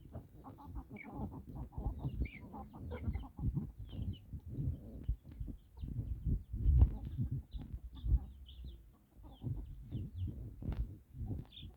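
Free-range chickens clucking softly, with many short high calls, among a steady run of soft, low knocks while they peck at termites.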